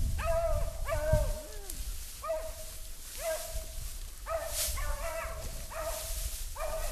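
Beagles giving short, repeated yipping barks, about one a second.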